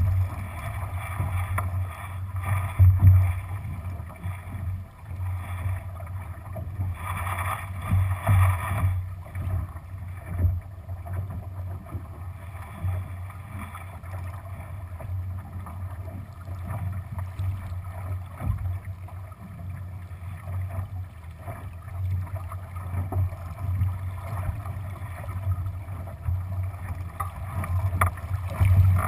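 Water rushing and splashing along the hull of a Lightning-class sailing dinghy under way, with wind buffeting the microphone as a steady low rumble. The water noise swells louder for a couple of seconds about seven seconds in.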